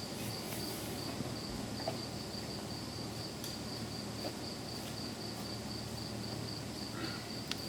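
A cricket chirping steadily, a high pulsing note at about three or four chirps a second, over a low steady hum, with a couple of faint clicks.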